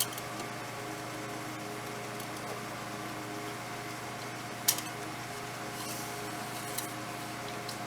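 A steady mechanical hum holding one even pitch, with a single sharp click a little under five seconds in and a fainter tick near the end.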